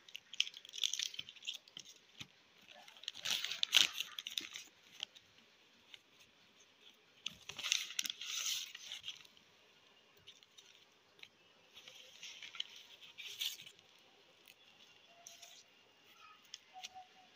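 Paper bag and plastic sauce sachets rustling and crinkling as they are handled, in several short bursts a few seconds apart.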